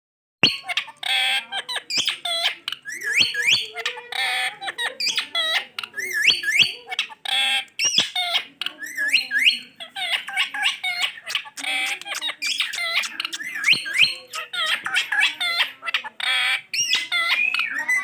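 Male Indian ringneck parakeet calling nonstop: a rapid run of squawks, chirps and quick whistled glides, with snatches of mimicked talking. It starts about half a second in.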